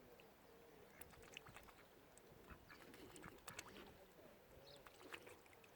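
Faint, soft quacking of mallard ducks, with a few small clicks.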